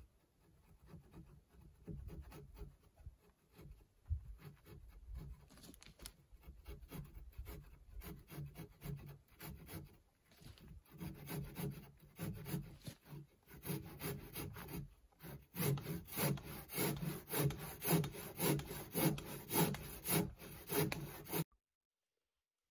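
A hand tool rubbed back and forth against a peeled log porch post, in rasping strokes that grow louder and more regular, about two a second, over the last several seconds, then cut off suddenly near the end.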